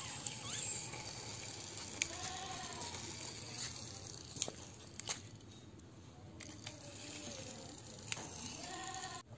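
Small plastic toy car pushed by hand across a rough concrete floor: faint rolling and scraping of its wheels, with a few sharp clicks.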